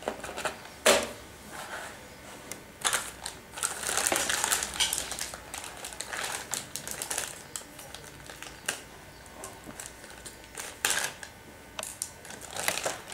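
Hard plastic parts of a Play-Doh Flip n Frost cookie playset being handled and fitted together: scattered light clicks, knocks and rattles, with some rustling. A sharp knock about a second in is the loudest.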